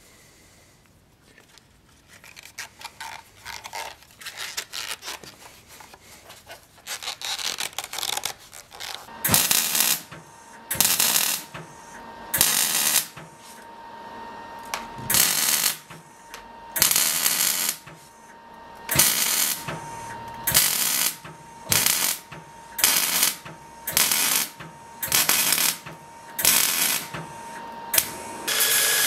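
Electric arc welding on a small steel part in a vise, done in short runs: about a dozen crackling bursts of under a second each, with a faint steady tone between them. Softer, irregular crackling comes first, before the bursts begin.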